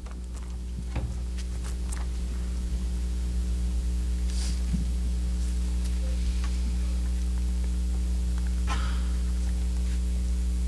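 Steady low electrical hum from the church sound system, with scattered faint knocks and rustles over it.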